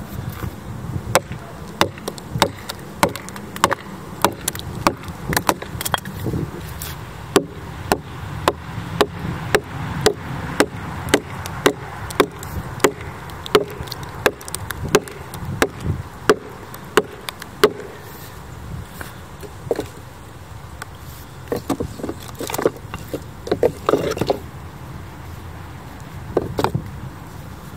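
An axe striking wooden wedges driven into the split of a red oak log. The wood knocks sharply and regularly, one or two strikes a second, as the wedges are worked deeper to split the log along its length. After a short pause, a few more scattered strikes follow near the end.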